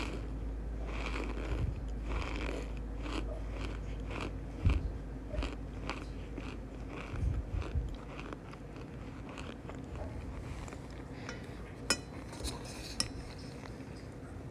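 Cornstarch being crunched with a squeak, in short repeated strokes about twice a second, then sparser, with a few sharp clicks near the end.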